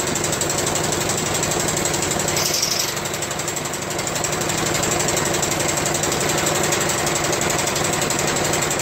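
Craftsman 24-inch snow thrower's small four-stroke engine running steadily at full throttle with an even, rapid beat. It has just started on its freshly replaced carburetor.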